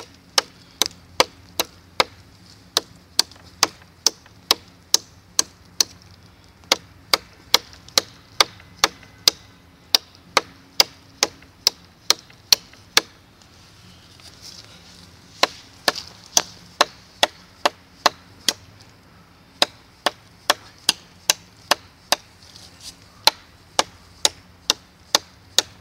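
Knife blade with an Elmax steel blade chopping into a wet, live branch about 4.5–5 cm thick: a long run of sharp chops, a little over two a second, with a pause of about two seconds near the middle.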